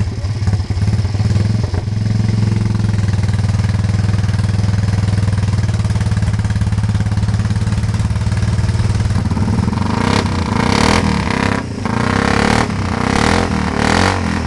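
Classic racing motorcycle engines: a loud, steady engine note at constant revs, then from about ten seconds in several loud surges of revving.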